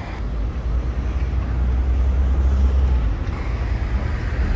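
City street traffic: a steady low rumble of passing cars. A little over three seconds in the sound changes and a steady hiss grows louder.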